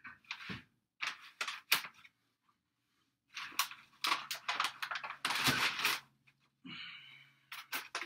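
Mirrored sliding closet doors being slid on their tracks, with knocks and rustling as things are moved about in the closet.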